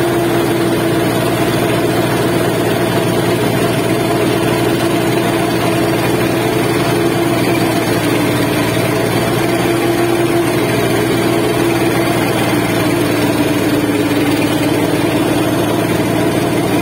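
Engine of a sand-pumping boat running steadily at close range, a loud continuous drone whose pitch wanders slightly.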